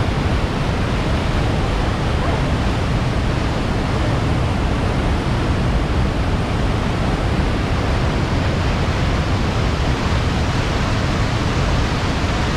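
White water of a large mountain waterfall pouring through a rocky gorge, heard from right beside it: a loud, steady rush of water, heaviest in the low end.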